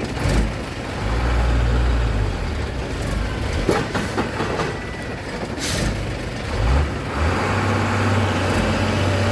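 Truck diesel engine running, pulling harder twice, with a short hiss of air about halfway through.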